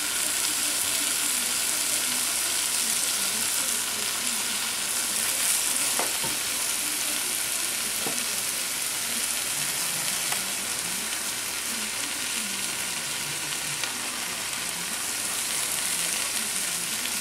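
Diced sweet potatoes sizzling in a frying pan, with a few light knocks of a spatula against the pan.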